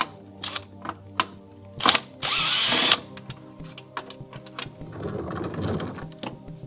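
Cordless drill-driver with a 4 mm hex bit backing screws out of plastic seat trim: one short run of under a second about two seconds in, a rougher, quieter run around five to six seconds, and scattered clicks of bit and screws between. Soft background music underneath.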